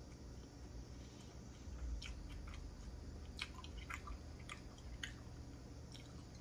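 A person chewing food, with irregular small mouth clicks, most of them between about two and five seconds in.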